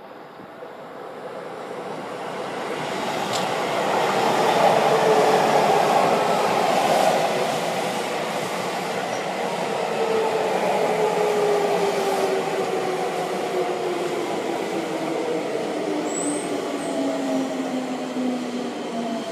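Seibu 20000 series ten-car electric train pulling in, with wheels rumbling on the rails. It is loudest about five seconds in as the front cars pass. Later the inverter motor whine falls steadily in pitch as the train brakes.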